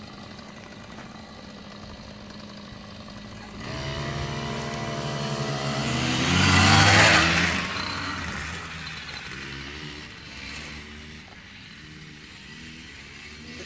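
Children's dirt bike engines revving as the bikes pull away and pass by. The engine note rises from about three and a half seconds in, is loudest around seven seconds, then fades as the bikes move off.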